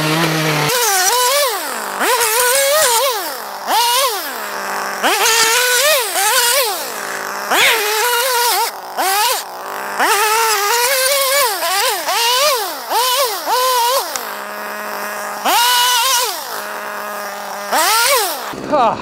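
Two-stroke petrol chainsaw revving hard and dropping back to idle about a dozen times as its freshly sharpened chain cuts through wooden pallet planks.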